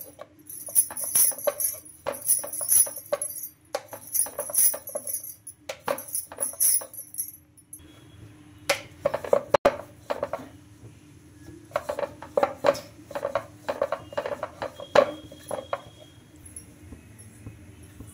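Wooden rolling pin rolling out paratha dough on a wooden board in quick back-and-forth strokes. For the first seven seconds or so each stroke comes with a bright metallic jingling; after that the strokes are lower rubs and knocks with a few sharp clicks.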